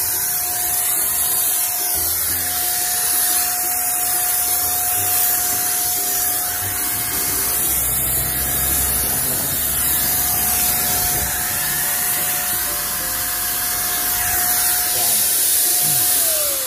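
Electric paint sprayer running: a steady motor whine under a loud hiss of paint spraying onto wooden fence boards. Near the end the sprayer is switched off and its whine falls in pitch as the motor spins down.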